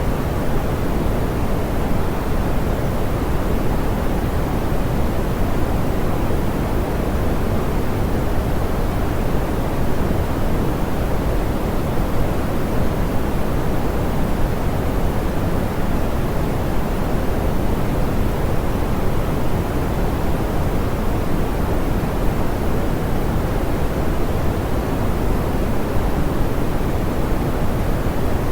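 Steady synthetic pink noise, a soft even hiss weighted toward the low end with the highs rolled off, unchanging throughout.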